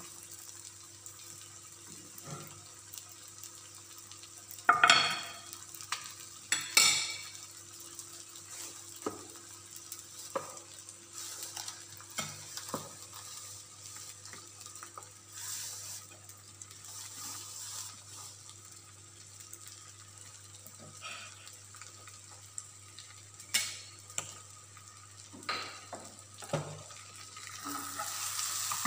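Creamy chicken sauce sizzling in a frying pan while a utensil stirs and scrapes, with scattered knocks of metal on metal. There are two loud ringing clanks of the pan about 5 and 7 seconds in, and a few more knocks near the end. A steady low hum runs underneath.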